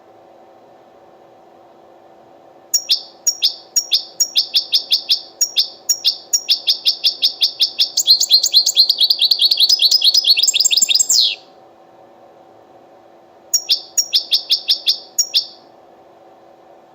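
European goldfinch twittering: a series of sharp high chirps that quicken into a fast trill ending in a falling note, then after a short pause another run of chirps. A steady low hum runs underneath.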